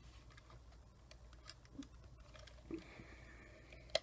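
Faint scattered ticks and small clicks of a precision screwdriver and loose tiny screws against a camcorder's plastic casing, with one sharper click near the end.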